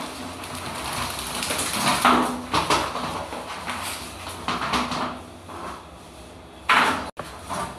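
Hands scrubbing soap into a wet dog's fur during a bath, rubbing and rustling in irregular strokes, with a louder sudden noise near the end.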